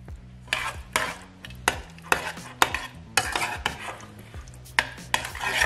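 Metal utensil stirring and scraping thick carrot-and-potato puree against a stainless steel pot, in a run of scrapes and clinks roughly two a second.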